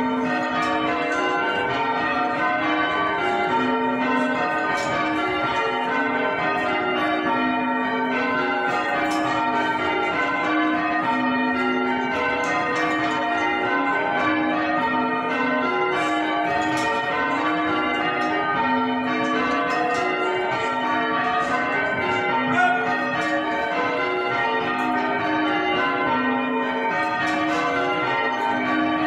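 A ring of six church bells being rung full circle by hand on ropes, each bell striking in turn in a steady, unbroken succession of overlapping, ringing tones.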